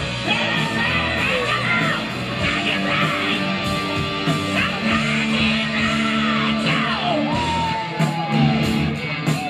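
Live rock band playing with guitars and singing, with yells over the music, heard from within the audience.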